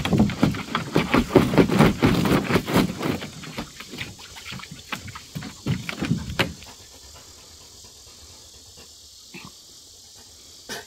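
Six-week-old St. Bernard puppies growling and grunting as they wrestle in play, a rapid run of rough pulses that dies away about two-thirds of the way through.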